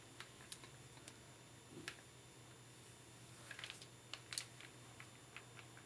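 Near silence with faint, scattered small clicks, from hands handling the hair and the curling wand while a section of hair is being curled.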